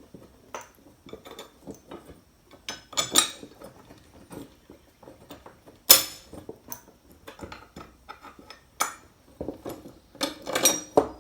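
Scattered metallic clinks and taps of steel mower parts and tools being handled while fitting the spring and bolts to a new Pitman arm, with one sharper clank about halfway through.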